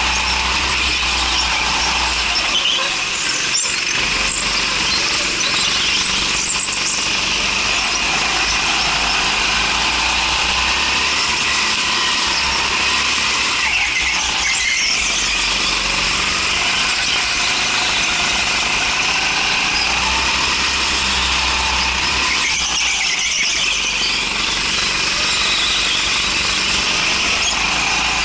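Go-kart engine running hard with its tyres squealing on the indoor concrete track through the corners, heard onboard the kart as a steady, loud high-pitched squeal over the engine.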